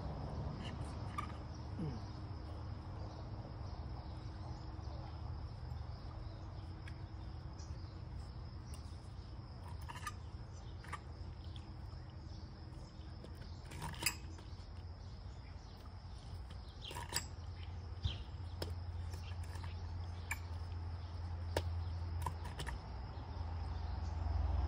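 Crickets trilling steadily over a low rumble, with a few scattered sharp clicks and light knocks.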